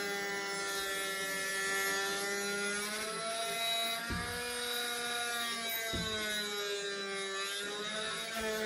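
Small corded power tool running while cutting into a panel; its motor whine sags and recovers in pitch as it bites, with two short knocks about four and six seconds in.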